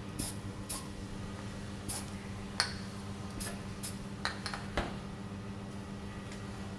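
Aerosol spray-paint cans and a metal tray being handled: a string of short, sharp clicks and clinks over the first five seconds, over a steady low hum.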